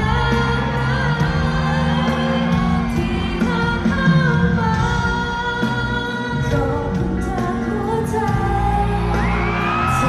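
A female singer sings a pop song with a live band of electric guitars and drums through the PA, heard from the stands of a large arena. Near the end she glides up into a long held note.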